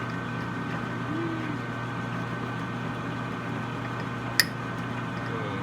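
Metal lathe running at a slow 70 RPM while a pilot drill is fed into the end of the workpiece: a steady hum with a thin steady whine over it, and one sharp click about four and a half seconds in.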